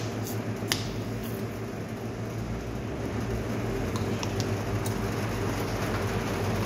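Steady mechanical hum of the Carbo 500 carbonator, its chiller and pump running, with a few light clicks near the start and around four seconds.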